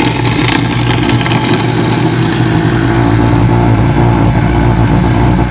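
Kitchen sink garbage disposal running with a load of ice cubes: a steady electric motor hum under a loud rattling grind as the blades chop the ice. The ice shards scour biofilm and gunk off the disposal blades.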